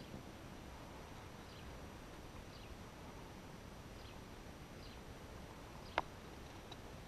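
Quiet lakeside outdoor ambience with faint, brief bird chirps about once a second, and a single sharp click about six seconds in.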